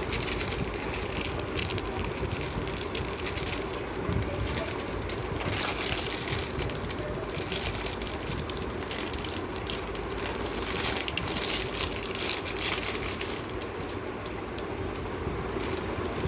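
Irregular crackling and clicking of a plastic toy and its packaging being handled, over a steady background hum.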